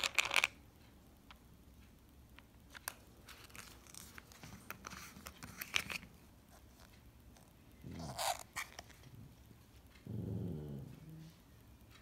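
Plastic supplement bottles handled on a wooden floor, with clicks and small rattles as a screw cap is worked open. A small dog gives a short low grumble about 8 s in, then a longer growl lasting about a second near 10 s.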